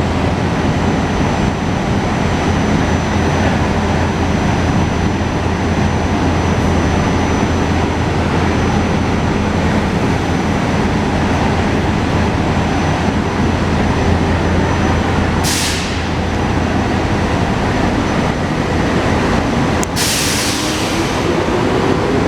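SEPTA Regional Rail electric train running at an underground station platform: a steady loud rumble and hum, with two sharp hisses of released air, about 15 and 20 seconds in, the second lasting longer. A rising whine begins near the end.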